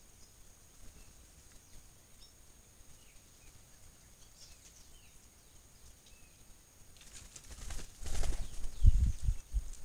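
Wing flaps of a large bird flying close to the trail camera: a feathery rustle builds about seven and a half seconds in, then a few heavy low whumps just before the end. Faint short bird chirps are heard before it.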